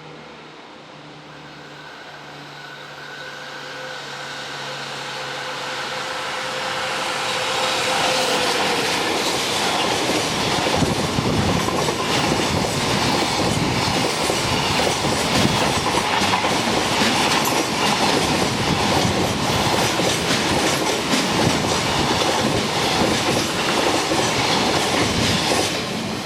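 Freight train hauled by a JR Freight EF65 electric locomotive approaching and passing close by. The locomotive's steady tones drop in pitch as it goes past, about eight seconds in. A long string of container wagons follows, wheels clattering over the rails, and the sound falls away just as the last wagon passes at the end.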